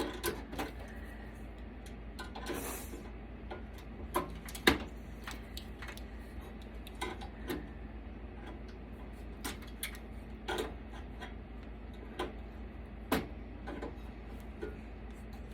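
Scattered metallic clicks and clinks of a desktop computer being taken apart by hand, as wires and parts are pulled free inside its metal case. The loudest knocks come about a third of the way in and again near the end.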